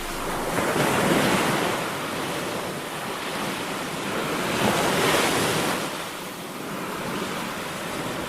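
Ocean surf washing onto the shore, swelling twice about four seconds apart.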